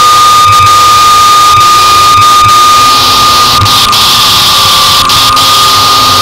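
Harsh noise wall: a dense, very loud wall of electronic static hiss with a steady high tone running through it. The hiss is broken by brief dropouts, with scattered low pulses underneath.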